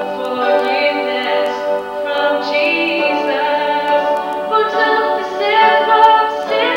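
A woman singing a slow solo song with keyboard accompaniment, holding long notes.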